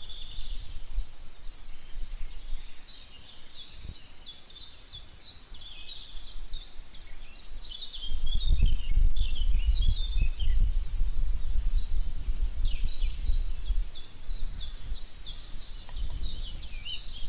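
Several birds chirping and trilling in quick series of high notes. A low rumble comes in about halfway through and is the loudest part.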